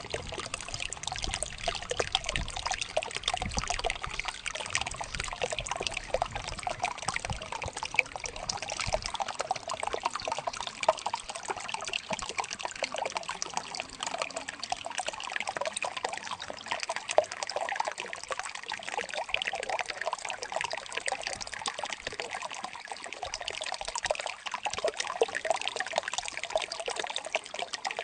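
Water flowing and trickling, a steady babble of small splashes.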